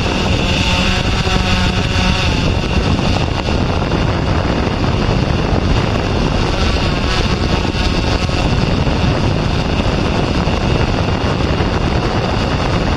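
Steady whir and wind rush of a camera drone's propellers heard from on board, with a high motor whine. A car engine rises and falls in pitch faintly, once about a second in and again about seven seconds in.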